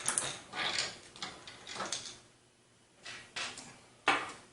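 Hands and a screwdriver working on a PC case, unscrewing a front case fan: a string of scrapes, clicks and clunks of metal and plastic, with a short quiet gap about halfway through.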